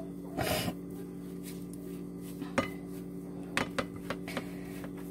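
Cheese being grated on a flat hand grater over a glass pie dish: a short rasping stroke about half a second in, then several sharp clicks and taps of the grater against the glass dish. A steady low hum runs underneath.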